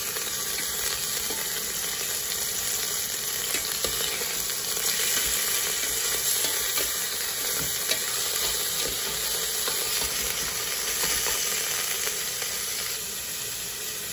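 Cubes of beef chuck searing in hot olive oil in a pressure-cooker pot: a steady sizzle, with a few light clicks of a spoon against the pot as pieces are laid in and turned.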